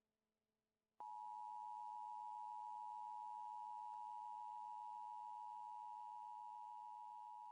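Emergency alert system attention signal: a steady, unbroken two-note tone that starts abruptly about a second in, after near silence.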